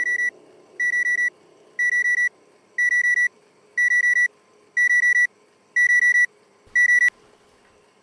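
Mobile phone alarm beeping: a short, high, fast-warbling beep about once a second, growing slightly louder, until it is switched off with a click about seven seconds in.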